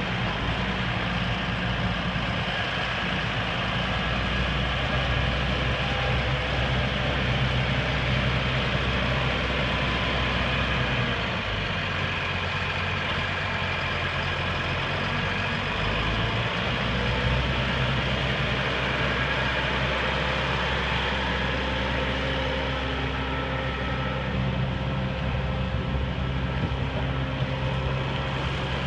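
Case IH MX270 tractor's six-cylinder diesel engine idling steadily, its low hum shifting for a few seconds around the middle.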